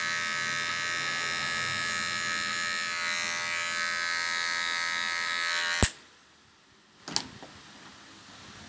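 Cordless hair clipper running with a steady high whine as it cuts a fade at the nape. It cuts off abruptly with a sharp click about six seconds in, and there is a short knock about a second later.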